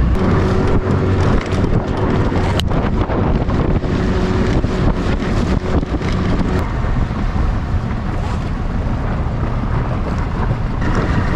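Small boat's outboard motor running under way, with heavy wind buffeting the microphone. A steady engine tone drops away a little past halfway.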